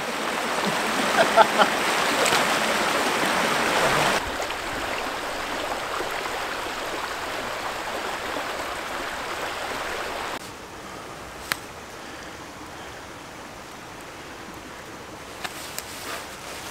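Shallow woodland river rushing over stones: a steady rush of running water that drops in level about four seconds in and again about ten seconds in.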